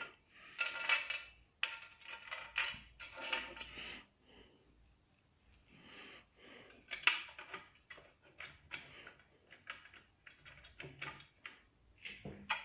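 Steel washers and bolts clinking and rattling as they are handled and fitted to a drill press's column base plate, in irregular short clicks with a quieter pause partway through.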